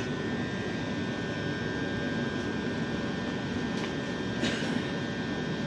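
Southern Class 377 electric multiple unit standing at the platform, its onboard equipment running with a steady hum and a few steady high whining tones.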